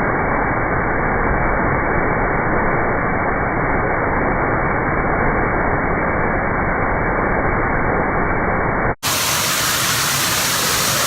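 Steady rushing of a 20-metre waterfall, sounding muffled with no high end for about nine seconds, then after an abrupt cut heard clear and full.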